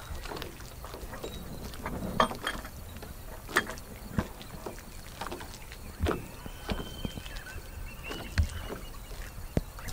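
Water sloshing and splashing around a person wading waist-deep while handling wooden ramp boards, with scattered sharp knocks.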